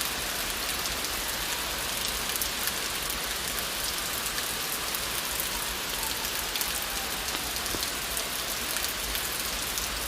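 Steady rain falling: an even hiss with many small drops pattering on surfaces.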